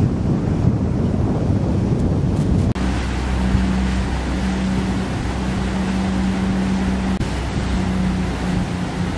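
Wind noise on the microphone for the first few seconds, then a sudden change to a motorboat's engine running with a steady hum over the hiss of wind and water.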